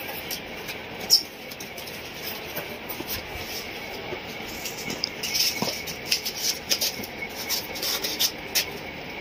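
Rustling and crinkling of a brown-taped cardboard box being handled and its flap worked open. Short, sharp crackles and taps that grow denser and louder about halfway through.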